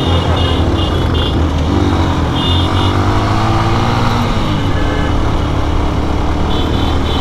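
Lifan KPR motorcycle engine running steadily, its pitch rising and falling in the first few seconds as the throttle opens and eases, with the engines of other motorcycles riding close by.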